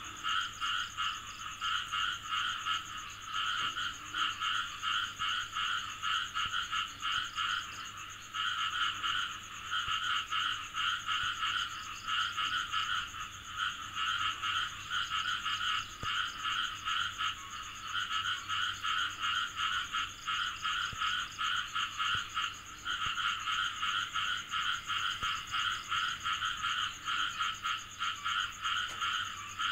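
Chorus of frogs calling: rapid pulsed trills that run on in long bouts, broken by brief pauses every few seconds.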